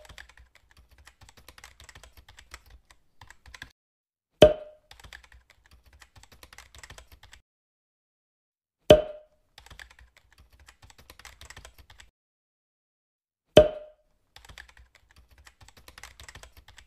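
Keyboard-typing sound effect: runs of soft, rapid key clicks as each web address types out, broken three times by a short loud pop as each new numbered card appears, about every four and a half seconds.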